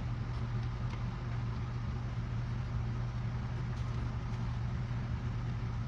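Steady low mechanical hum, unchanging in level, over a faint even hiss.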